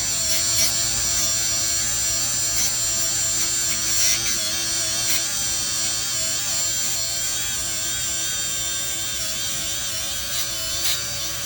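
Power tool on its low setting spinning a gasket remover disc against the engine block's oil pan sealing surface, a steady whine that wavers slightly in pitch, to strip old gasket material.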